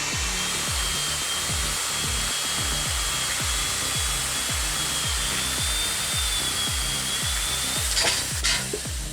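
A power saw running steadily with a faint whine, cutting wood, over background music with a steady beat. A couple of sharp knocks come near the end.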